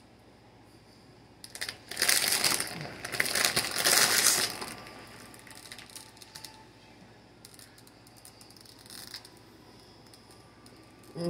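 Clear plastic candy bag crinkling and rustling as it is handled and put aside, loud for about three seconds, followed by faint scattered clicks.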